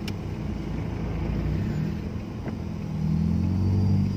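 Engines of slow-moving traffic in a jam, heard from inside a car, a low steady hum that swells louder near the end as a nearby engine pulls along.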